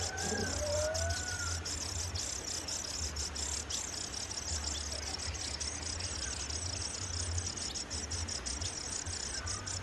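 Steady high-pitched insect chorus with a fast, even pulse, over a low rumble; a few short whistled notes come near the start.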